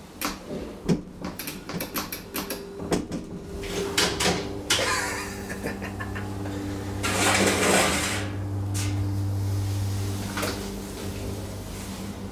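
Clicks and knocks as a DEVE hydraulic elevator's button is pressed and its car doors clatter shut. About five seconds in, the hydraulic power unit starts with a steady low hum that carries on as the car travels, with a brief rush of noise around seven to eight seconds in.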